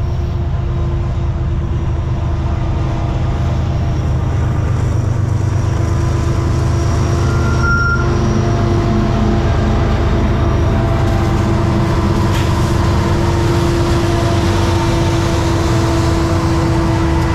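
Several BNSF diesel locomotives leading a freight train pass close by, their engines running with a steady low rumble and a droning tone that grows stronger in the second half.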